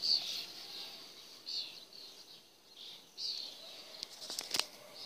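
Small birds chirping in short, repeated, high calls every second or so, with a few sharp clicks about four and a half seconds in.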